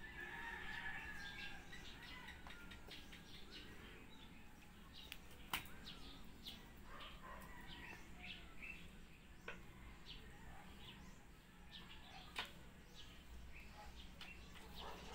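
Faint flapping, tapping and scuffling of a plush electric flopping fish toy being pounced on and wrestled by a kitten on a tiled floor, with two sharp knocks, one about a third of the way in and one near the end.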